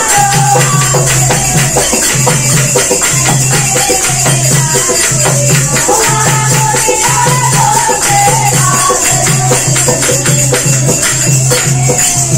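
Group of women singing a languriya folk song, with steady hand clapping and jingling percussion and a repeating low beat underneath.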